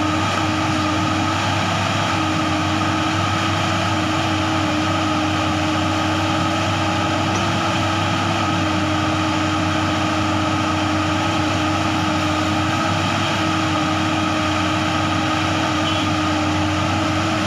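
Diesel engine of a JCB JS205 crawler excavator running at a steady drone as it works, loading soil into a dump truck.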